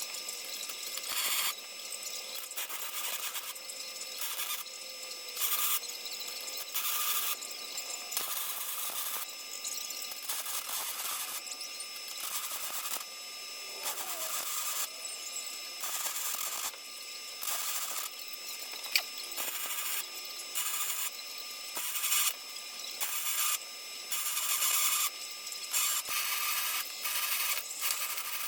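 Welder running in a series of short stitch welds, a crackling hiss that starts and stops every second or two, welding a new crossmember tube into a truck frame.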